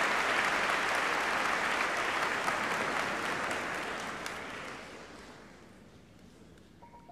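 Audience applause that dies away over about five seconds into near quiet; the first piano notes come in right at the end.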